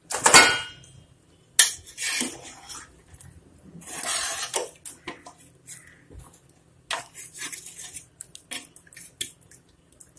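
Metal skimmer ladle clattering and scraping against the inside of a large metal cooking pot while beef is scooped out of the broth. A few loud clatters in the first half, then scattered lighter clinks.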